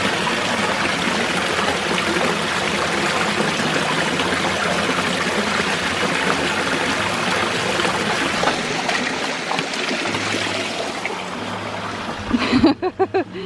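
Creek water flowing over rocks: a steady, full rushing hiss that eases slightly near the end.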